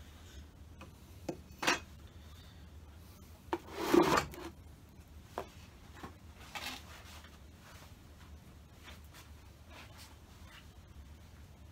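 Old wooden hive box being shifted on a workbench: a few light wooden knocks, then a louder scrape with knocks about four seconds in, and a couple of softer knocks after it.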